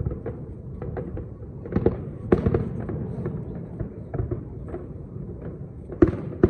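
Aerial firework shells bursting with sharp bangs amid a continuous crackle. The loudest bangs come about two seconds in and again near the end.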